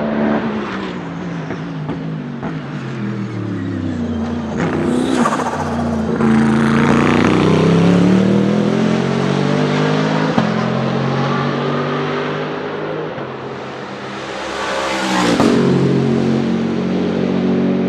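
Bentley Continental GT3 race car's 4.0-litre twin-turbo V8 going by at racing speed. The engine note falls early on as it slows for a corner, then rises and runs loud as it accelerates away. Near the end it comes past again with a rising and falling sweep, with a single sharp crack about ten seconds in.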